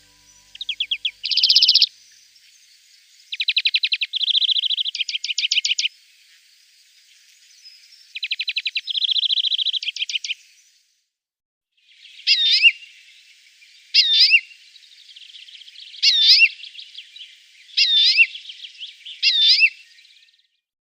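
European greenfinch singing: three trilled phrases, each running into a buzzy, wheezing note, in the first ten seconds, then five short sweeping calls about two seconds apart.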